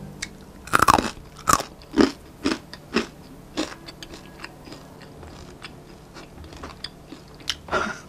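A person biting and chewing crisp, home-dried chicken breast jerky. About six loud crunches come in the first four seconds, then softer crackles as it is chewed, with one more crunch near the end.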